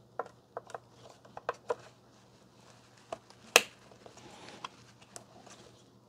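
Scattered light clicks and taps from handling small computer parts and packaging, about ten in all, with one sharper click about three and a half seconds in.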